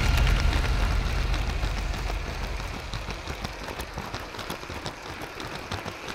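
Lego 9V train rolling on plastic track, its wheels making many light, irregular clicks over the rail joints. A low rumble fades away over the first two seconds.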